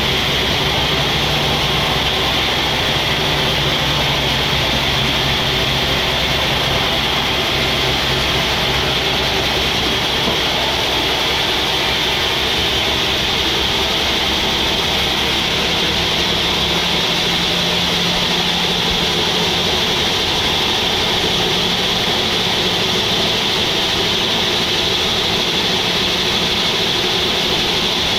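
Band sawmill running steadily, with a steady high band over a low machine hum whose pitch shifts a little over halfway through.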